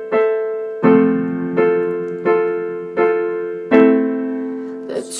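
Digital keyboard playing piano chords, struck steadily about every three-quarters of a second, each ringing and fading before the next.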